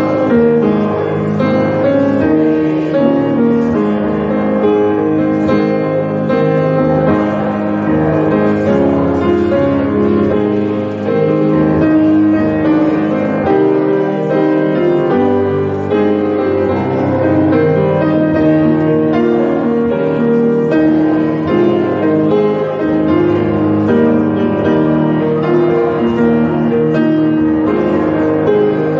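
Grand piano playing continuous chords and melody.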